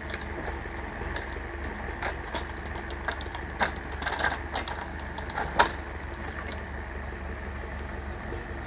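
MTZ-82 tractor's diesel engine running steadily while its hydraulic crane grapple handles wooden fence posts, with a run of sharp wooden clacks and knocks from about two to six seconds in, the loudest near the end of that run.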